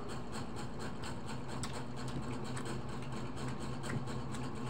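Steady low mechanical hum under faint, scattered smacking and clicking sounds of people eating with their hands.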